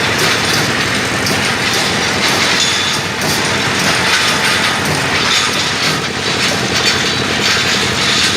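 Rebar bending machine running: a steady, loud mechanical din with continuous rattling clatter as it works steel reinforcing bar.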